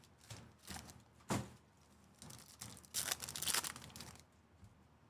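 Foil wrapper of a trading card pack crinkling and tearing as it is opened and handled, with a sharp tap about a second in and a denser burst of rustling around the middle.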